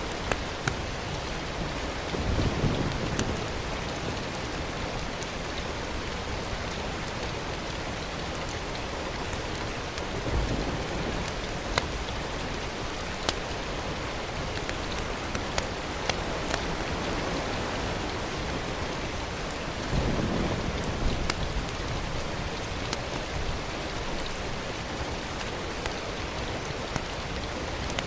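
Food sizzling steadily in hot oil in a pan, with scattered sharp pops and a few duller bumps.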